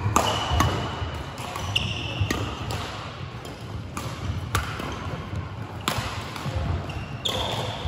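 Badminton doubles rally: rackets striking the shuttlecock in a quick, uneven run of sharp hits, with short high squeaks of court shoes on the floor between them, ringing in a large sports hall.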